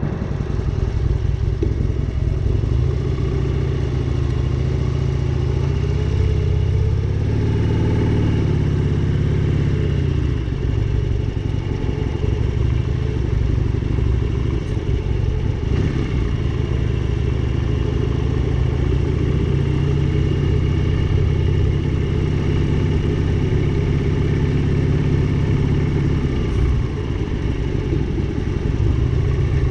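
Motorcycle engine running continuously while riding, its pitch rising and falling with throttle and gear changes, most noticeably about a quarter of the way in and again near the end.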